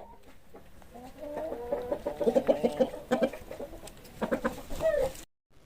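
Chicken clucking: a run of short, quick calls, louder in two bunches, that cuts off suddenly near the end.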